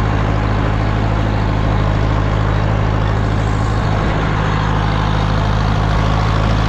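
Tractor engine running at a steady speed, pulling a row-crop cultivator through soybeans.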